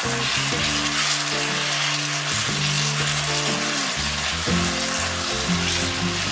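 Fusilli in tomato sauce sizzling in a pot as it is stirred with a spatula, over background music.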